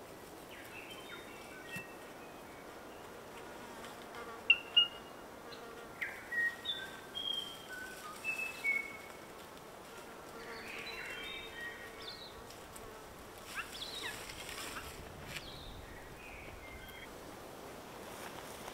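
New Zealand bellbird singing overhead: scattered phrases of short, clear notes, some sliding down in pitch, the loudest about a third of the way in, over a faint steady high hiss.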